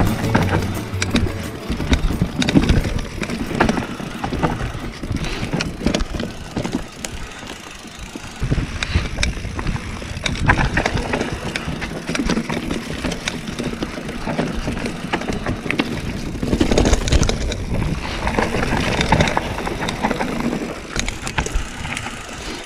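Calibre Bossnut mountain bike descending a dirt forest trail: tyres rolling over dirt, roots and stones, with irregular knocks and rattles from the bike. Background music ends about a second in.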